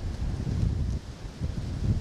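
Wind buffeting the microphone: a low rumble that swells and dips in gusts, with a brief lull about a second in.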